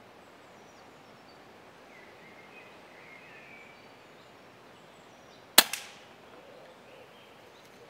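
Quiet woodland with a few faint bird chirps, then about five and a half seconds in a single sharp crack of a pre-charged air rifle (Daystate Wolverine) firing, with a fainter knock a split second after it.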